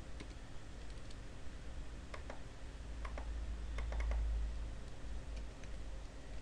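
Computer keyboard keystrokes: a few scattered key clicks, bunched about two to four seconds in, over a low rumble that swells around four seconds in.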